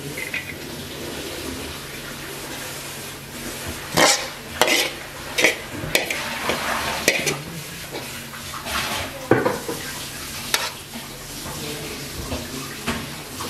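Metal ladle scraping and clanking against a pan, several sharp strokes over a steady frying sizzle, as stir-fried beef and kale are scooped out and served.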